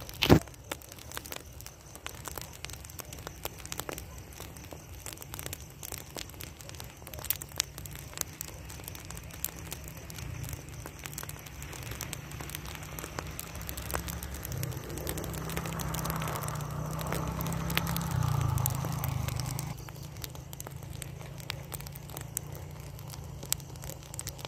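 Pile of burning rice straw crackling and popping, with one sharp snap right at the start. A low rumble swells up through the middle and drops away about four seconds before the end.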